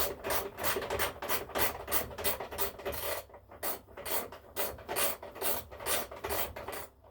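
A hand tool worked in quick back-and-forth strokes on the engine, making a rasping sound about three times a second. It pauses briefly about three seconds in and stops near the end.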